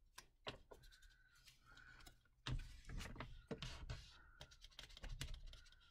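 Faint swishing of a plastic scraper tool rubbing over paper, pressing a freshly glued scrap flat, loudest between about two and a half and four and a half seconds in, with soft taps and paper handling around it.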